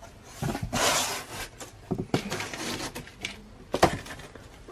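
A shipping package being opened by hand: rustling and scraping of the packaging, with a few short knocks as it is handled.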